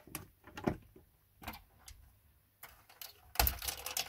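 Plastic keycaps being pulled off a Commodore 64C keyboard with a keycap puller: scattered clicks and knocks, then a louder rattling clatter near the end.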